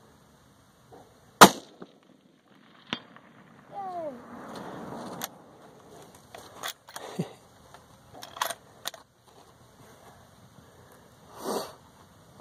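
A single 6.5 Creedmoor rifle shot about a second and a half in. About a second and a half later comes a faint, sharp report as the bullet strikes the steel target at 400 yards. Scattered smaller clicks and knocks follow.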